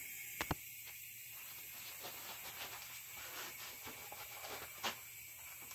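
Faint, steady hiss of air escaping from the tire through its valve stem as the tire is deflated before the bead is broken, with a few light clicks.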